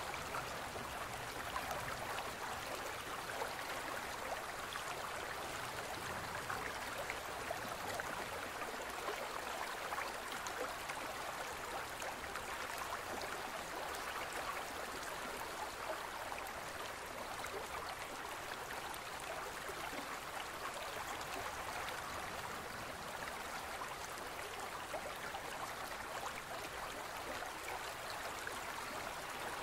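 A gentle stream of running water flowing steadily, an even babble and trickle that never pauses or changes.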